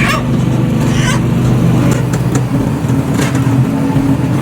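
Machinery motor running with a steady low hum that does not change. A few faint short sounds come over it.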